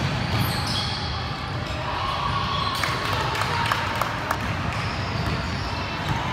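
A basketball dribbled on a hardwood gym floor, a few bounces about halfway through. Sneakers squeak in short high squeaks over a steady background of voices.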